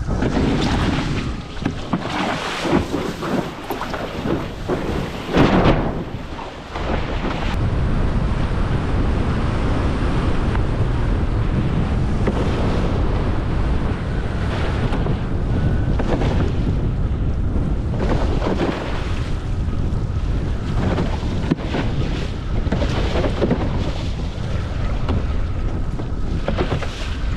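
Strong wind rumbling and buffeting on the microphone during a windfoil ride, with water rushing beneath it; brighter gusts and spray surge over the first few seconds, then the buffeting settles to a steady roar.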